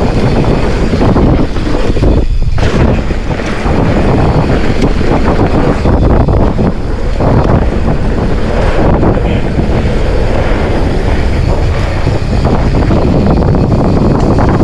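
Loud, steady wind noise on the microphone of a mountain bike rider's camera at speed down a dirt trail, mixed with a constant rough rattle of the bike over the ground.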